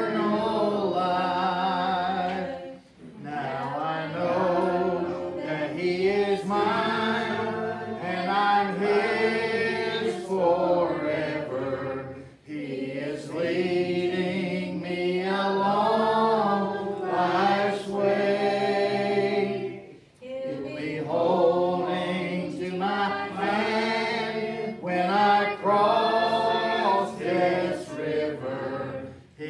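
Church congregation singing a gospel hymn together, several voices in one long sung phrase after another, with brief breaks between lines.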